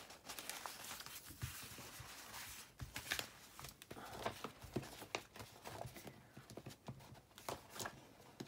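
Clear plastic stamps and their packaging being handled on a craft mat: irregular rustling and crinkling with scattered small taps and clicks.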